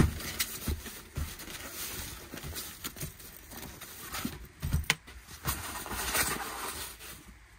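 Plastic packaging bag rustling and crinkling as a canteen in its carry pouch is pulled out of it. There is a sharp knock at the start and a couple of handling thumps about halfway through.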